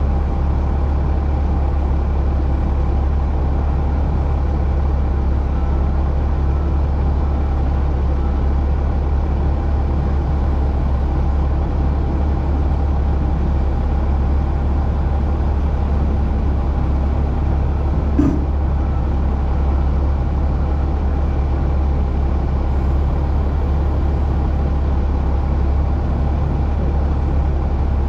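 Dump truck engine running with a steady low drone, with one brief click about eighteen seconds in.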